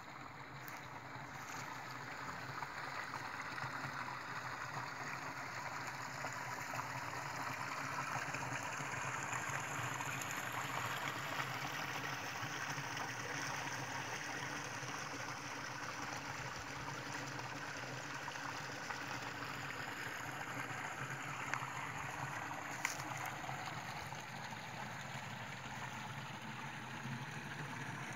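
Steady rushing and trickling of water flowing in a sinkhole, growing louder over the first few seconds, with two brief clicks about three-quarters of the way through.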